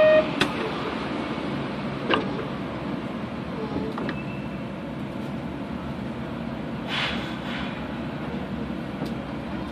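Interior sound of a Kobe City Subway 3000-series train: a steady low rumble with a few sharp clicks and knocks and a brief hiss about seven seconds in. A short electronic tone cuts off right at the start.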